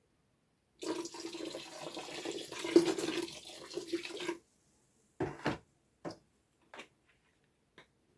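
Liquid pouring into a container for about three and a half seconds, then a few light knocks.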